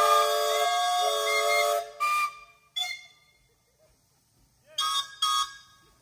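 Several steam whistles on a line-up of steam traction engines and road rollers blow together as a chord of steady tones, cutting off about two seconds in. A few short toots follow, the last two close together near the end.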